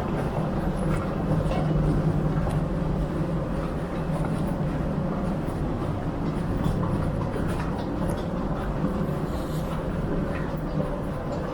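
Steady rumble and hum of a moving train car, as heard from on board, with a faint steady tone above the rumble.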